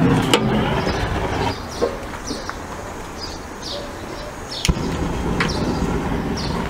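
Handheld gas torch on a hose blowing its flame into kindling wood to light a grill fire: a steady low rushing noise. It fades about one and a half seconds in and starts again with a click near five seconds.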